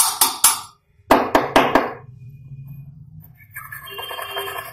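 Small welded iron pieces clinking and knocking against each other and on a wooden workbench: a quick cluster of three or four sharp knocks, then four more about a second in, over a low steady hum. Near the end a steady ringing tone with several pitches comes in.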